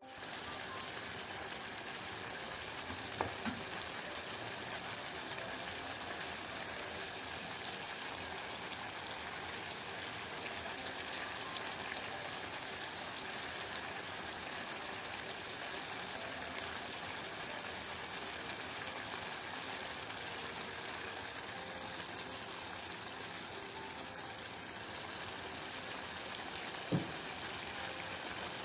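Meat and vegetable stew sizzling steadily in a steel pot over low heat, with a couple of light knocks of a cooking utensil against the pot.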